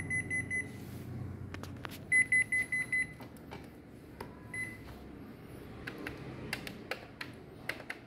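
Ricoh MP 4002/5002 copier's operation panel beeping during start-up: a quick run of short high beeps, a louder run of about six about two seconds in, and one more beep near the middle. Then come a few light clicks of fingers pressing the panel's keys and touchscreen.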